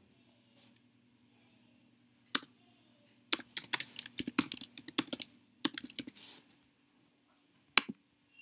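Typing on a computer keyboard: a couple of separate key clicks, then two quick runs of keystrokes, and a single sharper click near the end.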